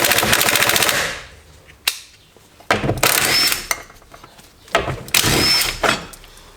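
Cordless impact wrench with a 12 mm socket undoing bolts in three short bursts of rapid hammering, each about a second long.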